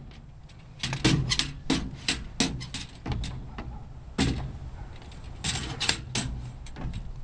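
Pogo stick and feet knocking on a playground's coated metal steps and deck: a run of sharp, uneven knocks, at times about three a second.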